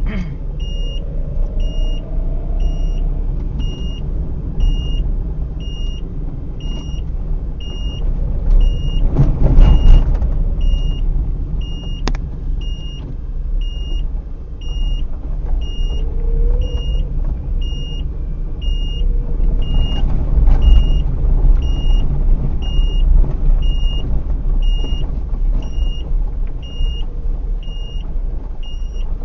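Steady low road and engine rumble inside a moving car, with a short high electronic beep repeating about once a second throughout. The rumble swells louder twice, about a third of the way in and again about two-thirds through, as traffic passes.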